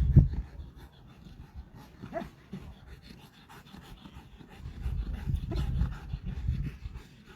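A working dog panting rapidly, with a low rumble coming and going over it.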